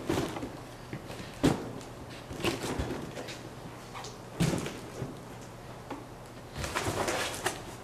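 Cardboard boxes of power tools being handled and set down on the floor, giving a few separate knocks, then a spell of cardboard and packaging rustling with more knocks near the end.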